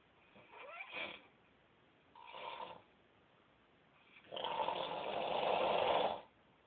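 A man snoring in his sleep: two short snores, then a longer, louder snore about four seconds in that lasts around two seconds.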